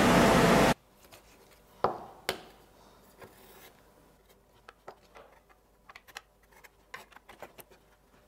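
A CO2 laser cutter running with a loud, steady noise that cuts off suddenly under a second in. Then quiet small clicks, taps and rubs of hands handling metal pins and laser-cut acetal gear plates.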